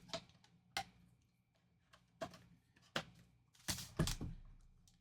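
A few light taps and knocks of a cardboard trading-card box and a card pack being handled and set down on a table, the loudest pair about four seconds in.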